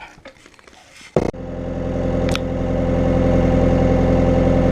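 A sharp click about a second in, then an engine running steadily, growing louder over the next couple of seconds and then holding.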